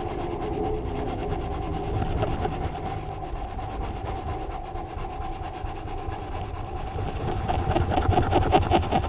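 Coloured pencil scribbling on a colouring-book page in quick back-and-forth strokes, busier and louder near the end, over a steady low hum.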